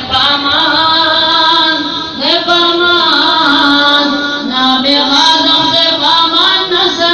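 Unaccompanied chanted nasheed: a single high voice sings a slow melody in long, held notes that waver and glide between pitches, with short breaks for breath.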